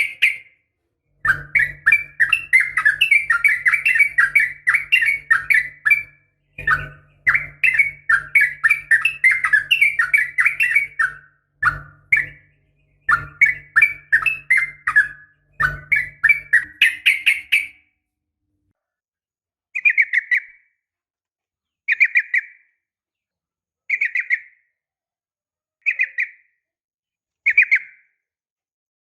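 Sooty-headed bulbul (trucukan) chattering in long, rapid runs of notes with short breaks, over a low steady hum; about two-thirds of the way in the runs stop and short separate calls follow roughly every two seconds. It is the call of a female calling to the male.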